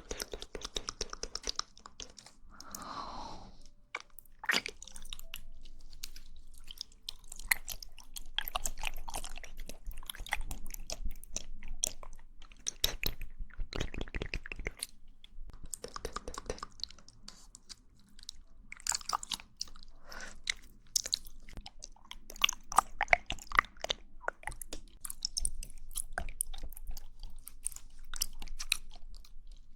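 Mouth sounds of eating jelly up close: irregular chewing and biting made of many sharp clicks of lips and tongue, with a short falling tone about three seconds in.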